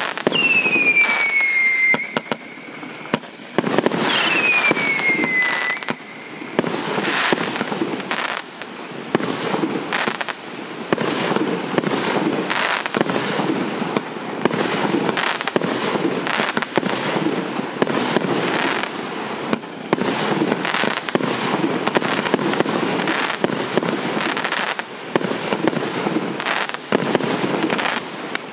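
A 100-shot, 1.2-inch firework cake firing shot after shot in rapid succession, its shells bursting overhead. Two falling whistles sound in the first few seconds, one at the start and one about four seconds in.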